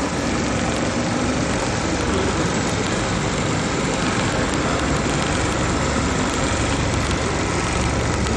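Industrial programmable pattern sewing machine (HighTex BAS-342GXL) running steadily, a dense even mechanical clatter without pause.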